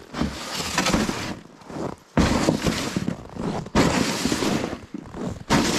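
Crunching and scraping over hard, very cold snow as a person walks pulling a plastic sled, in long bursts of about a second each with short gaps between them.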